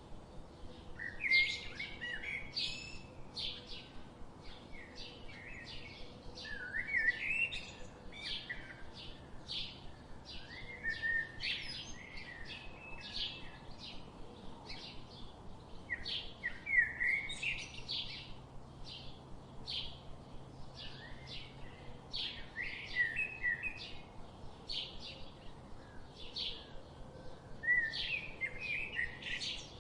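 Birds chirping: a quick, steady run of short high chirps, with a louder warbled phrase every few seconds.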